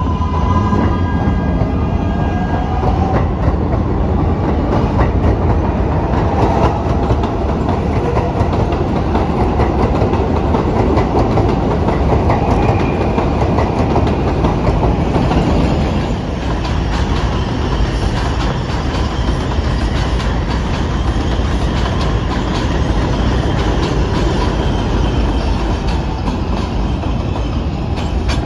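New York City subway (4) train, an R142-family car set, running through the station with a steady, loud rumble of steel wheels on the rails.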